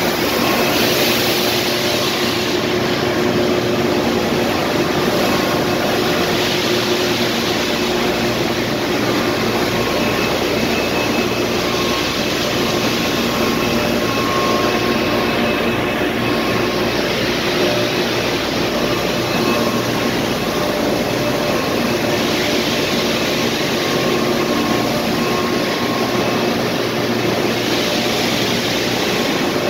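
Plastic sheet extrusion line running: a loud, steady machine drone of motors and blowers with several steady hums in it, its upper hiss swelling and easing now and then.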